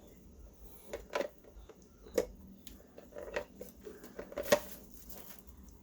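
Light clicks and taps of small plastic and metal parts as the coffee maker's internal wires and connectors are handled, a few scattered knocks with the sharpest about four and a half seconds in.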